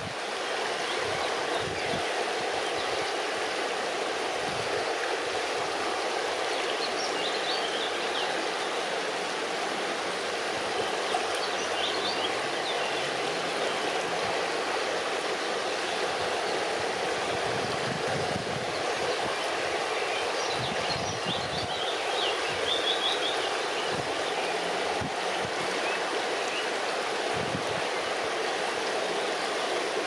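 Shallow river water running fast over rocks and stones: a steady, even rushing with no let-up.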